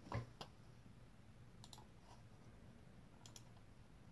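Computer mouse clicking: two short double ticks about a second and a half apart, after a soft knock at the start.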